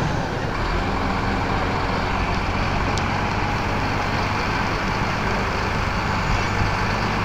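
Mobile crane's engine running with a steady low drone, and a single faint click about three seconds in.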